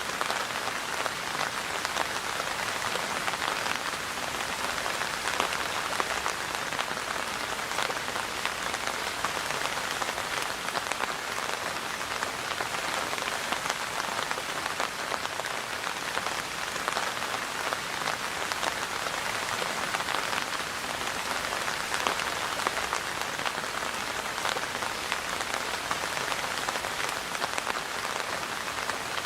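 Steady rain falling, a dense patter of many small drop ticks with no break or change.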